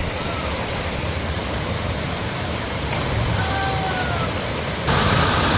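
Steady rush of a waterfall's falling water, as an even hiss. About five seconds in it turns abruptly louder and brighter, and a faint brief whistle-like call sounds shortly before.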